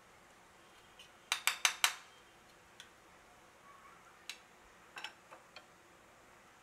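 Metal slotted spoon tapping against the edge of a kadai, four quick taps a little over a second in, then a few single taps spread through the rest.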